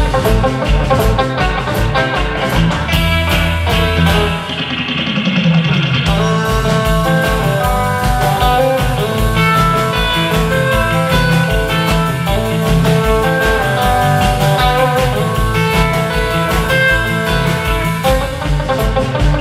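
Live instrumental surf rock played by a band of two electric guitars, electric bass and drum kit, with the lead guitar carrying the melody over a steady drum beat. About four seconds in, the drums drop out briefly while a note slides downward, and then the beat comes back.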